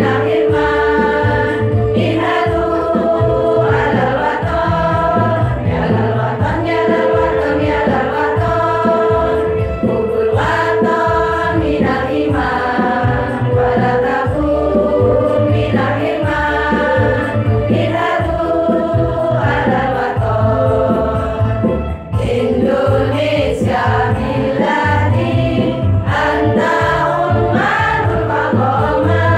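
Women's choir singing together into microphones over instrumental backing with a steady low beat, in phrases of a few seconds each.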